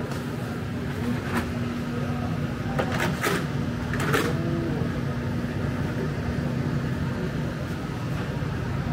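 Street ambience in a narrow alley: a steady mechanical hum carrying one constant low tone that stops near the end, with a few sharp clicks and knocks about three to four seconds in.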